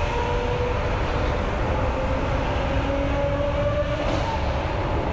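Car cruising steadily through a tunnel, heard from inside the cabin: a constant low drone of engine and road noise with faint engine tones drifting slightly in pitch, and no revving or backfires.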